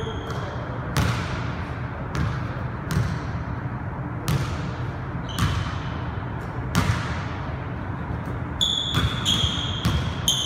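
Basketball bouncing on a hardwood gym floor: about nine separate, unevenly spaced thuds, each ringing briefly in the hall. Near the end come several short high squeaks, typical of sneakers on a hardwood court.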